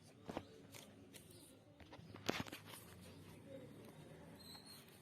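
Silicone pop-it fidget toy being pressed: a handful of soft, irregular pops, the loudest a little over two seconds in.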